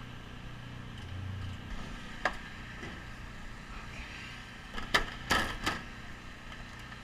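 A few sharp knocks and clatters, one about two seconds in and a quick cluster about five seconds in, over a low steady hum of engines.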